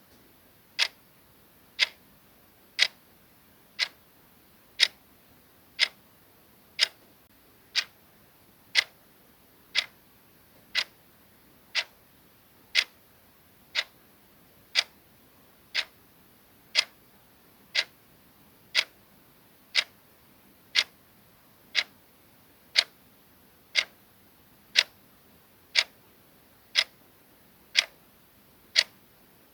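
Soft clock ticking sound effect: a short, crisp tick once a second, steady and even throughout.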